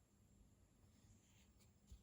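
Near silence: room tone, with a few faint small clicks and a soft thump in the second half.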